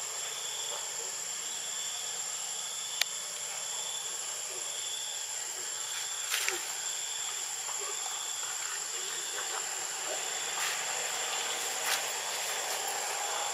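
Steady chorus of forest insects: a continuous high shrill with a lower pulsing trill beneath it. A few sharp clicks break through, the loudest about three seconds in.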